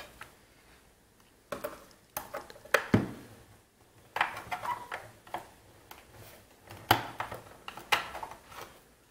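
Irregular clicks and knocks of a flathead screwdriver working stubborn screws out of a plastic hedge trimmer housing, with the plastic shell shifting and tapping against a wooden bench. Some clicks come in quick clusters.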